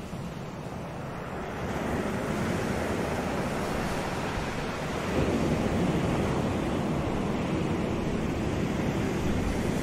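Ocean surf breaking over a rocky shore: a steady wash of waves that swells louder about two seconds in and again about five seconds in.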